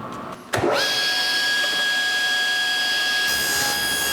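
Table saw motor switched on about half a second in, spinning up with a quick rising whine and then running at speed with a steady high-pitched whine.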